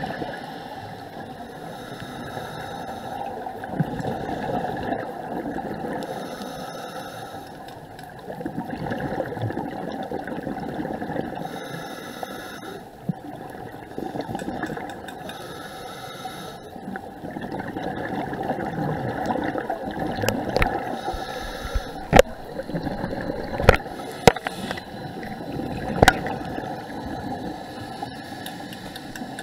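Muffled underwater sound through a camera housing: a scuba diver's regulator breathing, with a hiss and bubbling exhalation about every four to five seconds. A few sharp clicks come in the last third.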